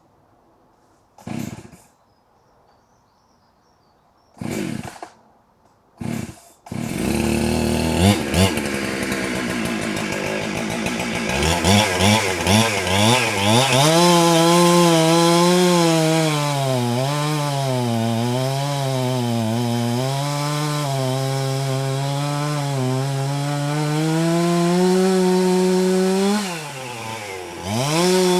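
Husqvarna 390XP 88cc two-stroke chainsaw starting after a few short bursts, revving, then running at high speed with its pitch sagging and recovering as it cuts under load. Near the end the engine drops off briefly and revs back up.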